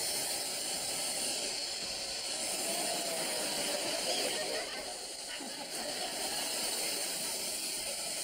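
Electric hairdryer running steadily, a constant hiss of blown air, used to heat-shrink plastic sheeting over a window.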